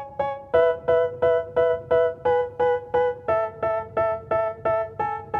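Instrumental background music: an electric-piano-like keyboard playing repeated chords about three times a second, shifting to a new chord a couple of times.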